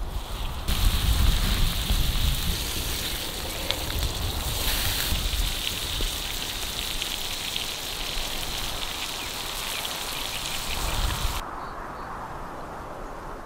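Ribeye steak and butter sizzling on a hot cast-iron griddle: a dense crackling hiss that starts about a second in and cuts off abruptly near the end, leaving a quieter, duller sound.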